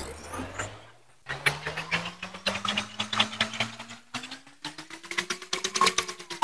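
Plastic spirograph gear rolled around the inside of a toothed plastic ring with a pen, giving a rapid, irregular clicking and rattling of the teeth. It starts after a short quiet gap about a second in. Under it runs a low steady hum that rises a little in pitch and falls again near the end.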